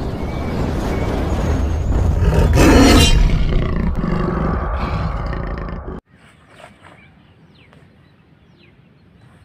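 Intro sound effect of a roaring beast, loud and swelling to its peak about three seconds in, then cutting off abruptly about six seconds in. Afterwards only faint outdoor ambience with a few short bird chirps.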